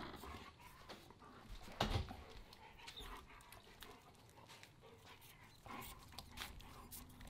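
A dog panting faintly, with scattered small clicks and a louder knock about two seconds in.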